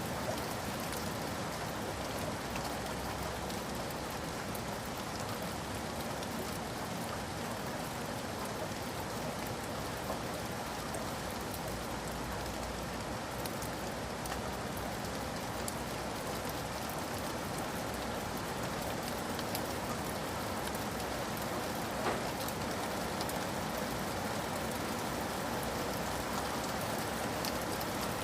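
Steady rain falling on a surface, an even hiss with scattered individual drops ticking, one slightly sharper about 22 seconds in.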